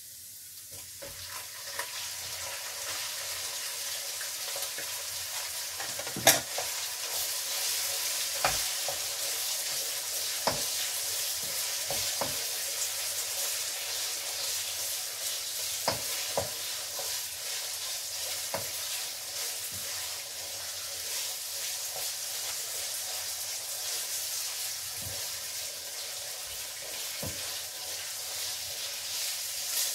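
Minced meat frying in a wok: a steady sizzle that builds about a second in as the meat goes into the pan. A spatula stirs it, knocking and scraping against the pan now and then, loudest once about six seconds in.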